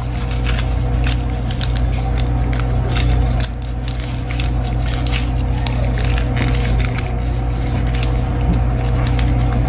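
Paper and masking tape crinkling and crackling in irregular clicks as hands wrap and tape small bundles, over a steady low hum.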